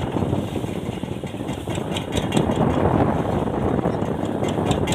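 Fishing boat's engine running steadily, with scattered sharp clicks on top, a few of them in quick succession about two seconds in and again near the end.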